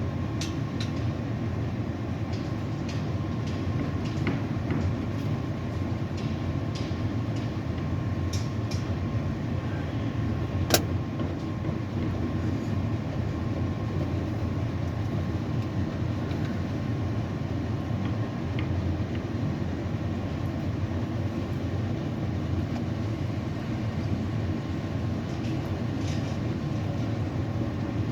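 Tower crane running, heard as a steady low mechanical rumble with a faint steady whine, and a single sharp click about eleven seconds in.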